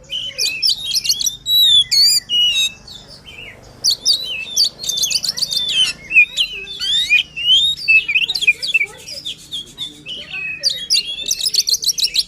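Oriental magpie-robin (kacer) singing hard, a loud, varied run of whistled notes, sweeping chirps and fast rattling trills with only brief pauses. This is the agitated, full-voiced song of a bird in peak form, the kind played to provoke other males into singing.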